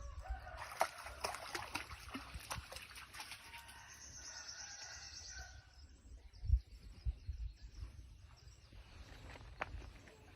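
Chickens and songbirds calling after rain, with a high, fast bird trill from about four to six seconds in. A few low thumps follow about six and a half seconds in.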